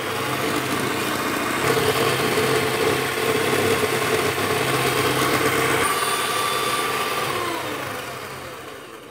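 Electric hand mixer running steadily, its beaters whipping whipped-cream powder into peach syrup in a bowl. Near the end the motor slows with a falling whine and winds down.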